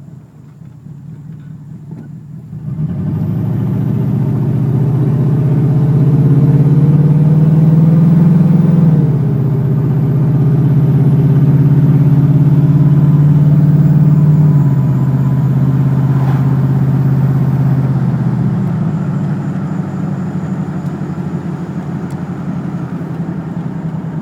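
Ford F-150 engine, a truck with a misfire, starts pulling about three seconds in. The engine note climbs, drops suddenly with a gear change about nine seconds in, then runs steadily and eases off toward the end.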